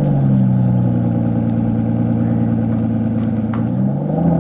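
Mercedes W210's M111 four-cylinder petrol engine running at steady raised revs, its pitch shifting slightly near the end.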